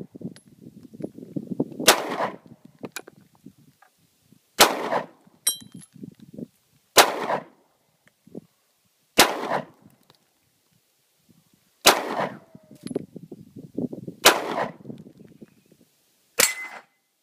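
Single gunshots fired one at a time at a slow, steady pace: seven shots about two and a half seconds apart, each with a short echo.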